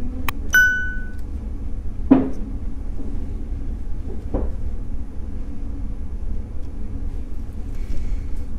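Small watch parts being handled: a digital watch's plastic module and circuit board tapping against each other and the fingers, with two soft knocks about two and four seconds in, over a steady low hum. About half a second in, a click and a short bell-like ding from a subscribe-button sound effect.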